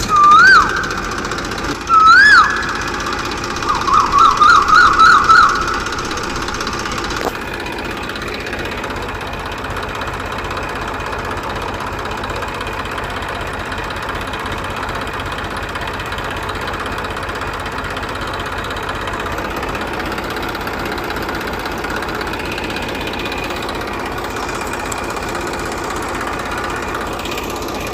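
Two siren-like whoops followed by a fast warbling siren tone for a couple of seconds, then a small engine running steadily with a fine, even rattle for the rest of the time.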